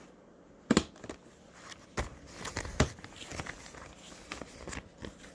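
Plastic vacuum-sealer bags and the sealer being handled: several sharp knocks and clicks, the loudest about three quarters of a second in, with light rustling between.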